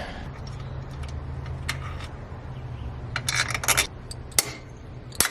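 Metal tools and hardware clinking and scraping during motorcycle work: a sharp click, then a quick run of clinks a little past the middle, and two single clinks near the end, over a steady low hum.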